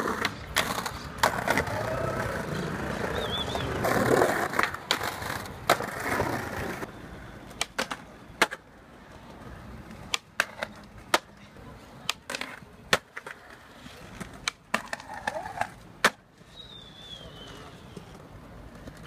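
Skateboard wheels rolling over pavement and stone, with sharp clacks of the board hitting the ground and ledges. The rolling is louder for the first several seconds, then gives way to a quieter stretch with scattered single clacks.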